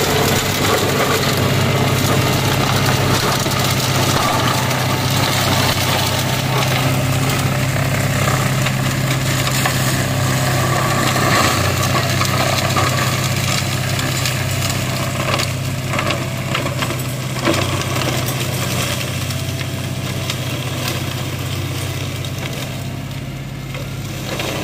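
Mahindra Oja 2130 4WD tractor's diesel engine running steadily under load, driving a Shaktiman mini flail mulcher that shreds coconut fronds and farm waste, with frequent sharp cracks and knocks as the material is hit. The sound grows a little fainter over the last several seconds.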